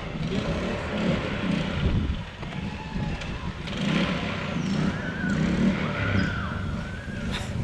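Small lawnmower-type engine on a go-kart running, its level rising and falling unevenly.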